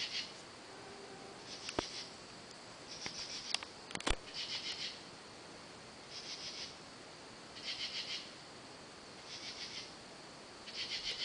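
Night insects calling: short buzzy bursts of rapid pulses, about one every second and a half, over a steady high trill. Two sharp clicks come about two and four seconds in, the second the loudest sound.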